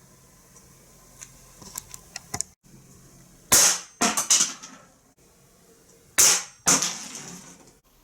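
Marushin PPK/S replica pistol firing: a few light clicks of handling, then two groups of sharp, loud shots, each a louder crack followed by a couple of lighter ones, about a third and three-quarters of the way in.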